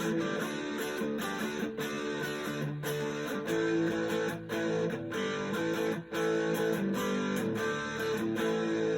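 Electric guitar played through a Hot Cake-derived overdrive pedal: strummed chords and ringing notes with an overdriven tone.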